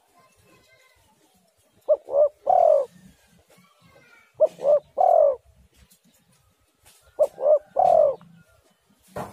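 Spotted dove cooing three times, each phrase two short coos followed by a longer drawn-out coo, repeated about every two and a half seconds. A short click near the end.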